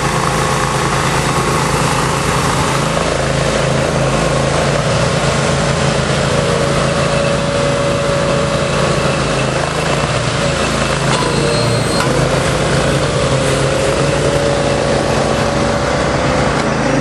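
Small engine driving a compressed earth block press, running steadily under load.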